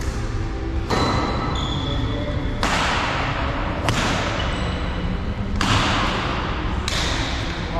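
Badminton rally: rackets smacking the shuttlecock about five times, roughly every second and a half, each hit echoing in the hall, with brief shoe squeaks on the court floor between hits.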